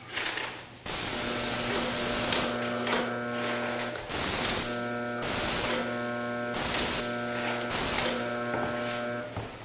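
Airless paint spray gun hissing in triggered passes: one long pass of about a second and a half, then four short half-second bursts, over a steady machine hum.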